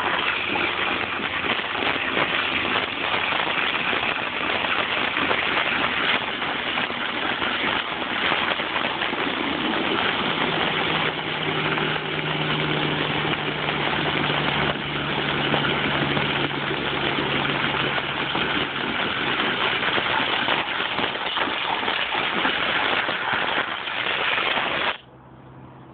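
Pressure washer spraying a jet of water into muddy ground: a loud steady hiss of spray over the hum of its running engine. The spray cuts off abruptly about a second before the end, leaving only the quieter engine hum.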